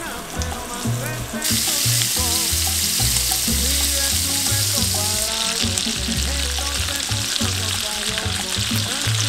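Seasoned beef sizzling as it sears in a frying pan. The hiss starts about one and a half seconds in and eases a little after about five seconds.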